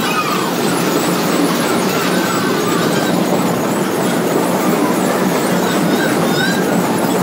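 Steady rumble of a vintage fairground carousel in motion, heard from on board the turning ride, with faint short high squeals now and then.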